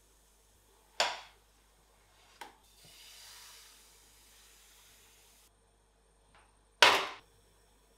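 Cooking sounds from a non-stick pan on a portable gas burner: two sharp knocks, one about a second in and one near the end, with a soft hiss in between as crêpe batter is ladled into the hot pan.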